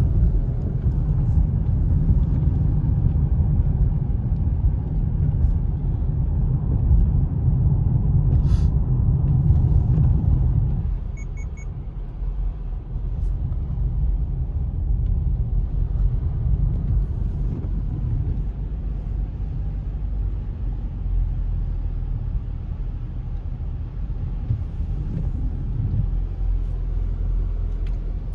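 Road noise inside a moving Subaru's cabin: tyres on wet pavement and a steady low rumble, louder for the first ten seconds or so and then quieter. Three short faint beeps come about eleven seconds in.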